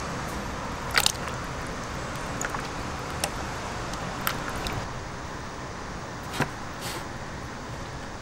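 Raw pork being handled in a stainless-steel tub of marinade and pan, giving a handful of short, sharp clacks and knocks against the metal, the loudest about a second in and again after six seconds, over a steady background hum.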